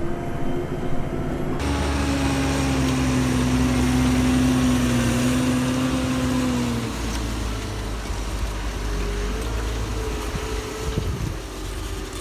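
Tractor engine running under load, heard from inside the cab. Its steady note changes sharply about a second and a half in, then drops about seven seconds in.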